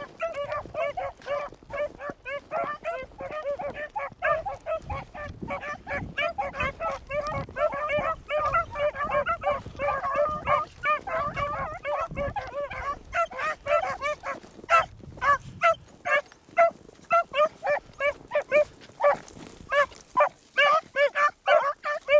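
Pack of beagles baying as they run a rabbit track. Many short bawls overlap at first, then thin to louder, separate calls, a few a second, in the second half.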